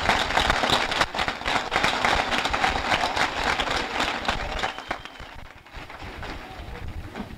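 Concert audience applauding, the clapping dying down about five seconds in.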